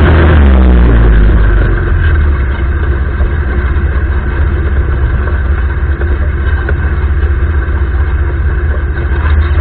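Air-cooled single-cylinder four-stroke engine of a 200cc ATV running while ridden. Its pitch drops in the first second as it comes off the throttle, then it settles into a rough, uneven drone.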